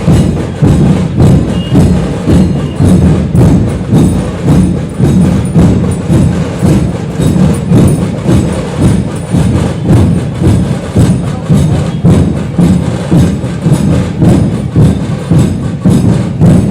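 Drums played in a steady, driving rhythm, about two strong beats a second, with deep low-pitched strokes and lighter hits between them.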